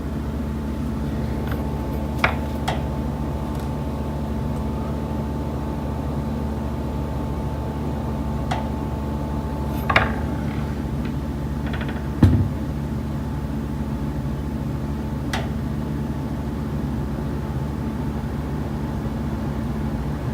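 Irregular knocks sounding through a building, about six sharp raps several seconds apart, the loudest a low thud about halfway through. Beneath them runs a steady mechanical hum with a constant tone.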